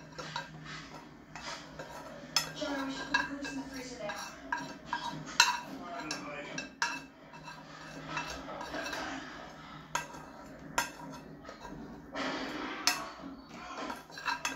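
A spoon scraping and tapping scrambled eggs out of a frying pan, with irregular sharp clinks and knocks against the pan.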